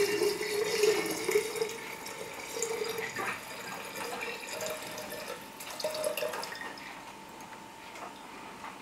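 96% ethyl alcohol poured from a bottle into a glass jar of water: a steady trickling stream with a hollow ring from the jar, thinning and fading out over the last few seconds as the pour ends.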